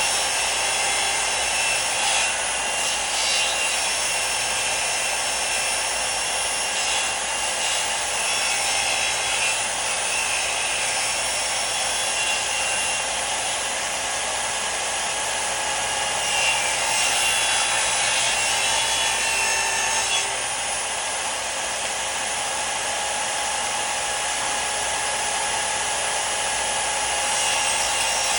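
Power saw cutting wood: a steady, continuous sound with a high whine held throughout.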